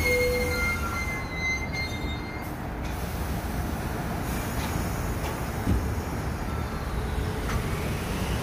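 A New York City Subway R62A train on the 1 line closing its doors and pulling out. Its cars roll past with a steady rumble, and a faint motor whine rises near the end as it picks up speed.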